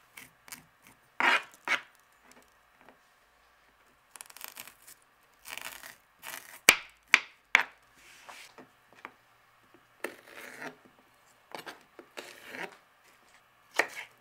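Serrano peppers being prepared on a plastic cutting board: a spoon scraping out seeds and a knife cutting. It comes as scattered short scrapes and taps with gaps between, including a few sharp taps about halfway through.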